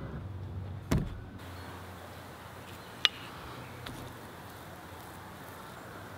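Tableware being handled: a dull thump about a second in, then a sharp clink of a metal spoon against a ceramic bowl, and a lighter tap shortly after.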